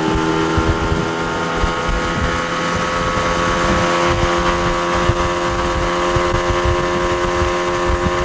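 Boat's outboard motor running steadily at speed, a constant engine note with irregular low buffeting underneath.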